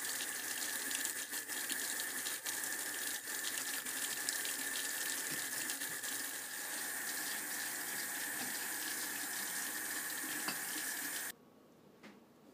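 Kitchen tap running steadily into a sink, with a faint constant tone in the rush of water; it stops abruptly near the end.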